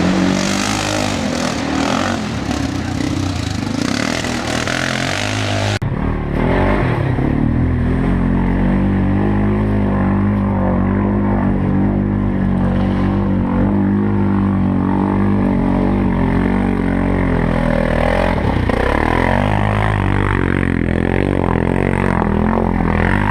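4x4 ATV engine running. For the first six seconds a loud rushing noise lies over it and then cuts off abruptly. After that the engine's steady low note is clear, its pitch rising and falling a few times near the end.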